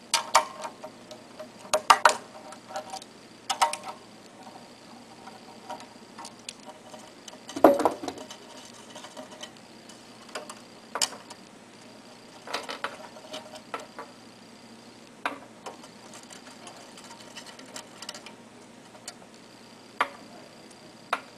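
Irregular metal clicks and clinks of hand tools and loose bolts while the hardware is taken off an ink pump's end plate, some with a short ringing tail.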